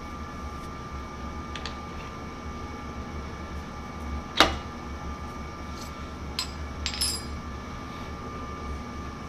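Drill chuck on its taper arbor being fitted into a lathe tailstock quill: one sharp metallic clack about four and a half seconds in and a few lighter metal clinks around it, over a steady machine hum.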